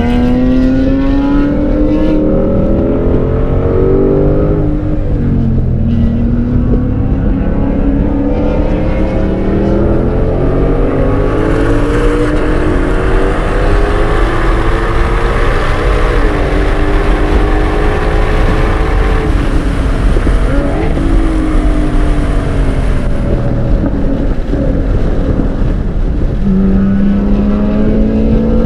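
2022 Shelby GT500's supercharged 5.2-litre V8 heard from inside the cabin on track, accelerating hard and backing off, its pitch climbing and falling several times with speed and gear changes. In the middle, at high speed, a loud rush of wind and tyre noise rises over the engine, and near the end the pitch jumps and starts climbing again.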